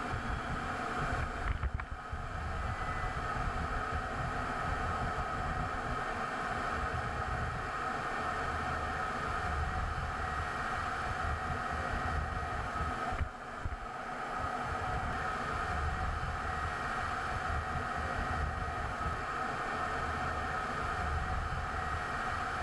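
In-cockpit noise of a MiG-29 fighter in flight: a steady drone of twin jet engines and rushing air, with a constant high whine over a low rumble. The drone dips briefly twice, about two seconds in and about thirteen seconds in.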